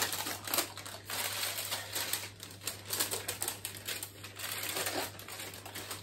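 Parchment paper crinkling and rustling as a baked pavlova sitting on it is handled and slid into place on a board, with irregular light clicks and taps.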